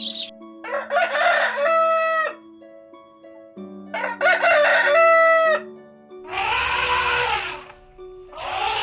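Rooster crowing twice, each crow ending in a long held note, followed by two harsher, rougher calls. Background music plays underneath.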